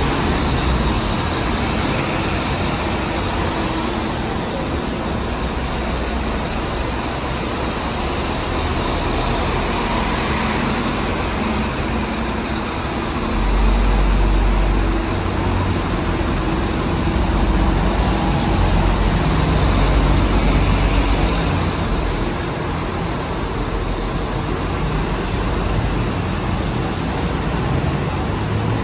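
City bus engines running as buses move through a bus interchange, over steady traffic noise. One bus engine grows louder about 14 seconds in. A short air-brake hiss comes about 18 seconds in.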